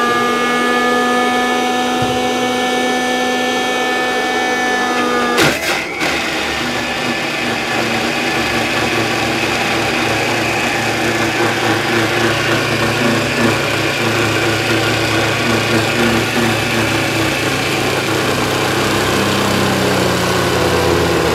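Restaurant mixer grinder running, its motor a steady whine of several pitches, as it blends egg whites and oil into mayonnaise with oil poured in while it turns. About five seconds in there is a sharp knock, after which the motor's note drops to a lower, heavier hum.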